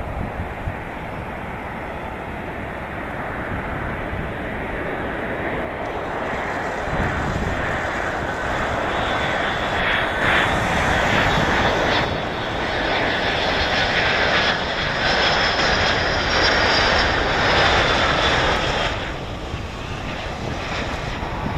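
Boeing 757-200 airliner on landing approach flying over, the rumble of its twin Pratt & Whitney PW2000-series turbofans building to a peak with a high whine on top, then easing off near the end.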